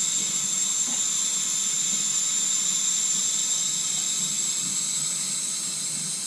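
Steady hiss with a high whistling edge from air and water forcing out of an opened purge valve on the air-bound lines of a Navien tankless water heater. It eases slightly near the end.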